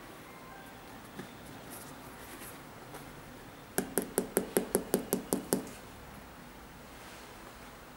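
A quick run of about ten sharp taps, roughly six a second, lasting under two seconds: fingers tapping on the rubber outsole of an Air Jordan 11 sneaker. Faint handling rustles of the shoe come before the taps.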